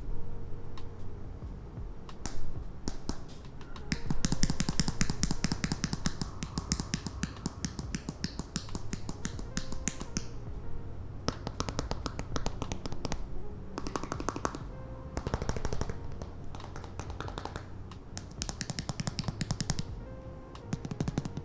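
Fingers tapping rapidly on the plastic underside of a Keychron K2 keyboard case in several bursts, a tap test comparing spots with and without a car sound-deadening pad stuck inside. Background music plays under the tapping.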